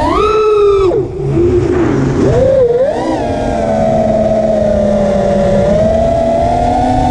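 Brushless motors and props of a 5-inch FPV freestyle quadcopter (T-Motor F40 III 2400KV motors) whining with the throttle. The pitch climbs at once and falls sharply about a second in as the throttle is cut, wobbles briefly, holds steady for a few seconds, then climbs again near the end.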